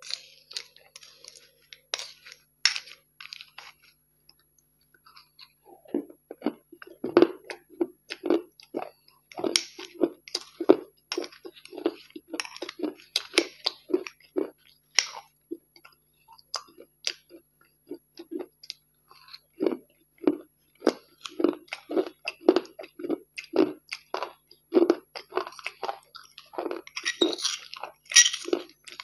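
Close-miked crunchy chewing, one crunch after another about once or twice a second, with light clinks of a metal spoon against a glass bowl at the start and again near the end.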